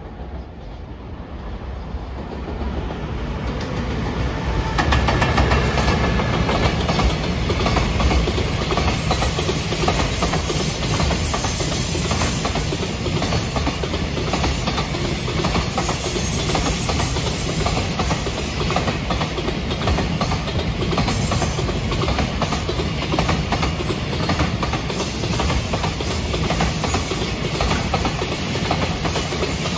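A freight train approaches and passes close by, its electric locomotive leading a long string of Koki 104 container flat wagons. The wheels clatter over the rail joints in a fast, steady rhythm. The train grows louder over the first five seconds, then holds at a steady level as the wagons roll past.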